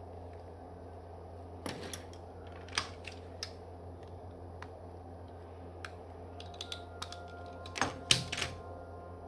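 Scattered small clicks and taps of parts and small tools handled while an iPhone 3GS's motherboard is fitted, with a louder cluster of clicks near the end, over a steady low hum.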